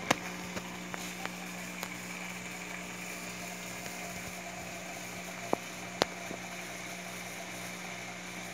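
Steady hum of an old water pump with water showering into an aquarium from a makeshift outlet that keeps the fish oxygenated, the falling water making a continuous splashing hiss. A few light clicks are heard, two of them close together near the middle.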